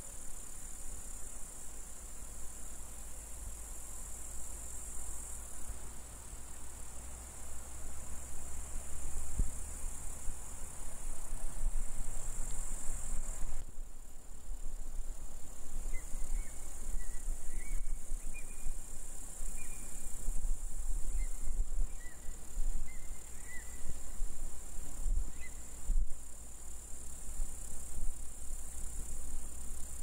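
Field insects chirring steadily in a high-pitched band, over a low wind rumble on the microphone. From about halfway, a skylark gives a few short chirps.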